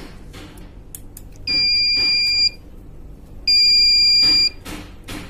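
Error buzzer of a Juki DDL-8700 industrial sewing machine's control box sounding E924: two steady high beeps, each about a second long, two seconds apart. The repairer suspects a fault on the power board.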